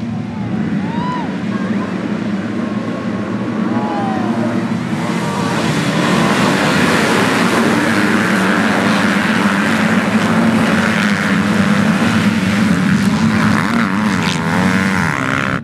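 A field of MX2 motocross bikes revving and accelerating away from the start together, their engines blending into one loud, steady drone that swells over the first several seconds as the pack charges past.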